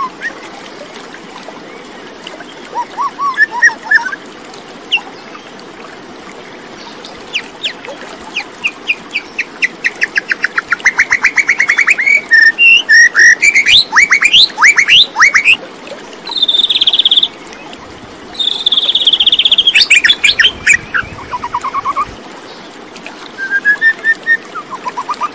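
Bird song: scattered chirps, then fast runs of rapid notes and trills, loudest in the middle, with some sustained high whistled notes.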